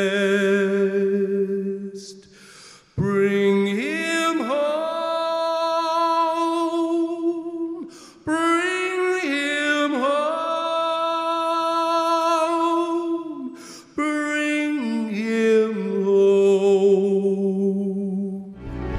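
A male singer holds long, slow notes with vibrato into a stage microphone, with little accompaniment under his voice. There are three phrases of several seconds each. In each the voice slides up and then holds the note, with short breaths between phrases about three, eight and fourteen seconds in.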